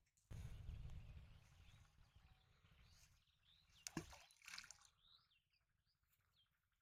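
Low wind rumble on the microphone for the first few seconds, then about four seconds in a single small splash as a thrown object lands in still water, followed by a few faint bird chirps.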